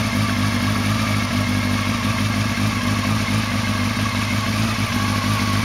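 Honda ATV engine running steadily at an even, low speed, as at idle, with no revving.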